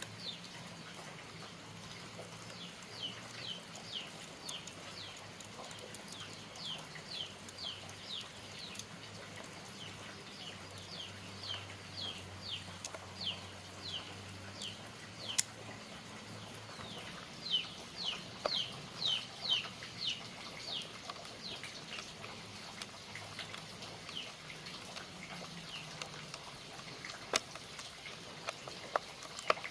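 Bird chirping: short, high notes that fall in pitch, repeated in quick runs, with a few sharp clicks or taps and a faint low hum underneath.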